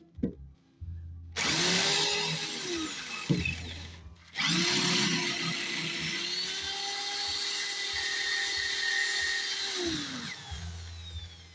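Electric drill with an 8 mm bit boring spring recesses for the front brake pads of a Mercedes Vito 639, sinking the anti-rattle springs about half a centimetre. Two runs: a short burst, then a longer steady run after a brief pause, the motor winding down at the end of each.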